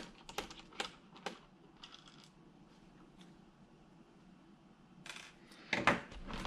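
Small metallic clicks and taps as a tiny keyboard screw is worked out of a Lenovo T530 laptop's case with a small Phillips screwdriver: a few sharp clicks in the first second and a half, then fainter ones. Louder handling and rustling of the laptop comes in near the end.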